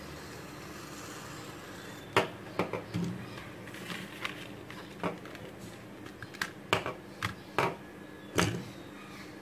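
Irregular clicks and knocks of a plastic fidget spinner, its small cardboard box and plastic packaging being handled on a wooden tabletop, starting about two seconds in, over a steady low hiss.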